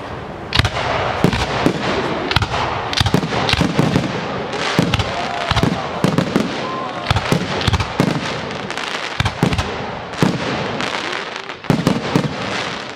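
Fireworks display: aerial shells bursting in rapid succession, dozens of sharp reports a fraction of a second apart over a continuous hissing, crackling background.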